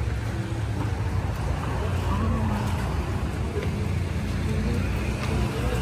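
Steady low rumble of street traffic, with faint indistinct voices of people nearby.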